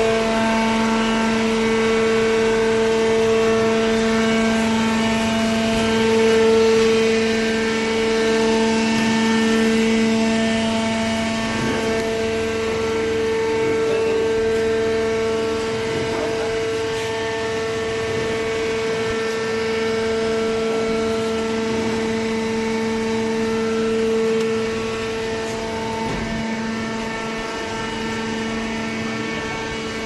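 Hydraulic cardboard baler's electric motor and hydraulic pump running, a steady hum with a fixed pitch and overtones that gets a little quieter near the end.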